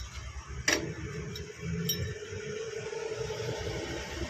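Metal clinking and scraping as the steel piston rod with its gland nut is drawn out of a Swaraj tractor's power steering cylinder, with one sharp clink about a second in and a few lighter ticks after.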